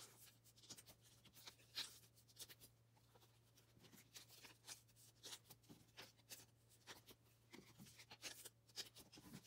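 Faint, irregular rustling and light clicks of photocards being slid into soft plastic sleeves and handled, over a steady low hum.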